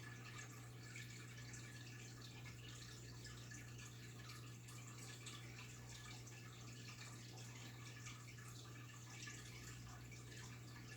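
Faint water sounds in a goldfish tank: many small drips and ticks over a steady low hum.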